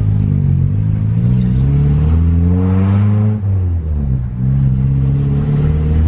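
Car engine heard from inside the cabin as the car pulls away. It rises in pitch for about three seconds, drops sharply as at a gear change, then climbs again.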